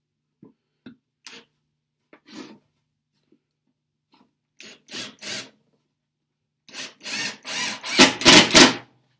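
Cordless drill driving a wood screw into pine, run in short bursts with pauses between them. The bursts grow longer and louder, the loudest near the end.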